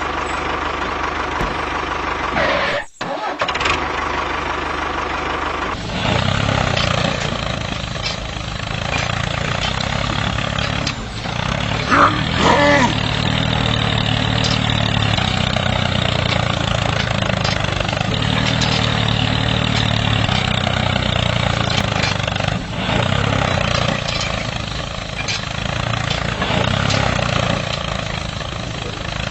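An engine running steadily, cutting out briefly about three seconds in. About six seconds in it becomes louder and deeper, and then runs on evenly.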